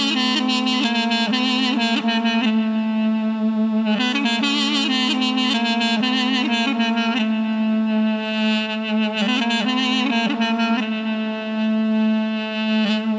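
Instrumental music: a reedy wind instrument plays a wavering, ornamented melody over a steady low drone.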